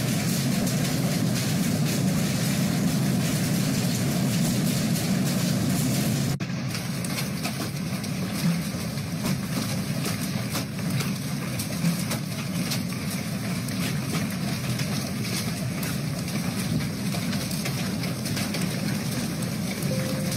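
Hailstorm: hailstones pelting windows and the ground in a dense, continuous clatter over a steady roar, the sound changing abruptly about six seconds in.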